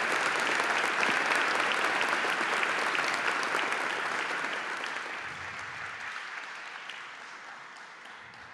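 Audience clapping, a dense patter of many hands that thins out and fades away over the second half.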